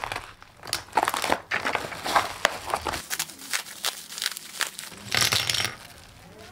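A plastic bubble mailer being cut open, then plastic packaging crinkling as the contents are pulled out: dense irregular crackles, with a louder burst of crinkling a little after five seconds in.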